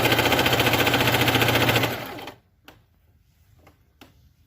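Singer Fashion Maker 8280 electric sewing machine running fast with a rapid, even stitching rhythm, sewing a zigzag along a folded fabric edge. It winds down and stops about two seconds in, followed by a few faint clicks.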